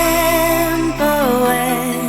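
Background pop song with a sung vocal holding long notes over the backing.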